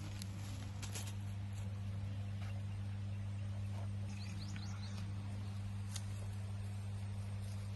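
A steady low hum, with a few faint high chirps, likely from a small bird, about four to five seconds in and a few light clicks.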